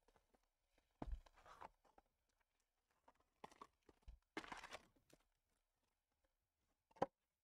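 Faint crinkling and rustling of wrapper and cardboard packaging being torn and handled as a trading-card hobby box is opened, in a few short bursts, with a single short knock near the end.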